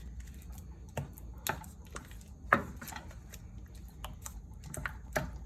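A utensil knocking and clicking against a pan while stirring melting cream cheese and ranch dressing: irregular light clicks, the loudest about two and a half seconds in, over a low steady hum.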